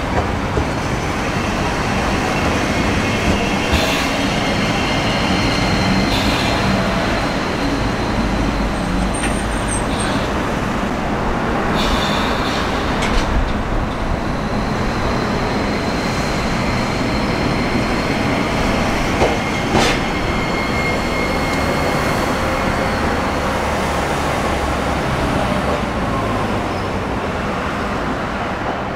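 Toyohashi Railway T1000 'Hottoram' low-floor tram, driven by a Toshiba IGBT-VVVF inverter, arriving at a stop and pulling away. It gives a steady high whine over wheel-on-rail noise, with a few sharp clanks and knocks.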